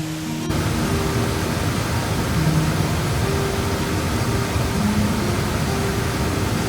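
Steady rushing of falling water from a waterfall, coming in about half a second in.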